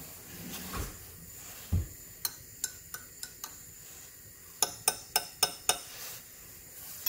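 Metal teaspoon clinking against the inside of a ceramic mug as tea is stirred: first a few spaced clinks, then five quick ones at about four a second. Two dull thumps come before the clinking.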